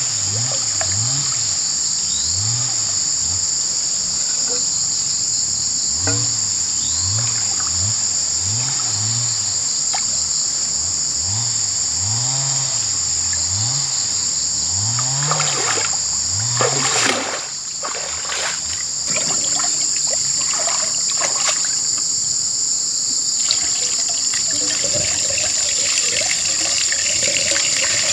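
Water splashing and sloshing around a person wading and groping with their hands in a shallow stream, with a cluster of louder splashes about halfway through, over a steady high-pitched drone of insects. Near the end, water is poured from a bucket.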